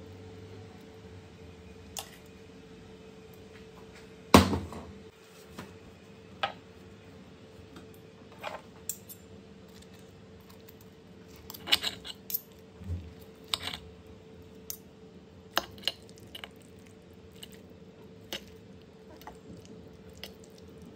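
Metal cutlery clinking, knocking and scraping on a ceramic plate as food is served and a knife and fork cut through meatballs; scattered sharp clicks, the loudest a knock about four seconds in.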